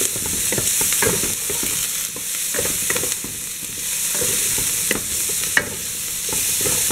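Chopped onions and green peppers sizzling in a metal pot while a wooden spoon stirs and scrapes them across the bottom, with irregular scrapes and light knocks and one sharper knock a little past halfway.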